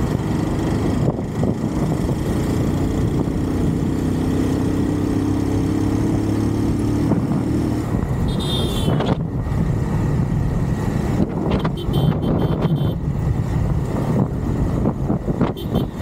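Bajaj Pulsar 220's single-cylinder engine running under way, with wind rush and road noise on the bike-mounted camera's microphone. The engine note changes about nine seconds in, and a short high tone from traffic is heard just before.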